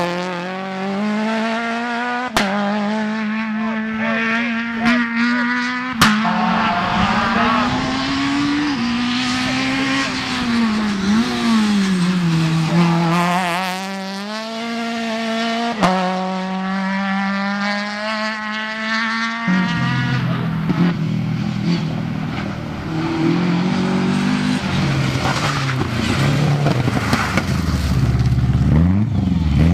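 Rally car engines at full throttle, several cars in turn, each engine note climbing and dropping with gear changes and lifts for corners. Renault Clio and Citroën C2 rally cars, then a deeper-sounding older Opel rally car accelerating toward the end.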